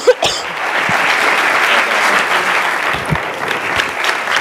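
Audience applauding steadily, with a short thump near the start.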